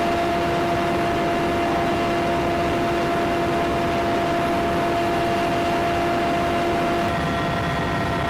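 Steady engine drone of an aircraft heard from inside the cabin, with a constant hum; one of the hum tones drops out about seven seconds in.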